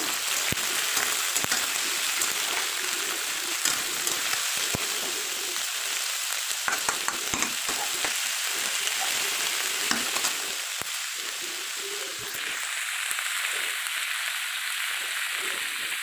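Mixed vegetables sizzling as they fry in hot oil in a metal kadai, with a steady hiss, while a steel spatula stirs them, scraping and clicking against the pan.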